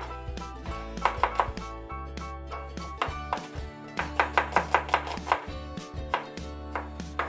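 Kitchen knife slicing a small red onion on a wooden chopping board: quick runs of sharp knocks, about four or five a second, with short pauses between runs.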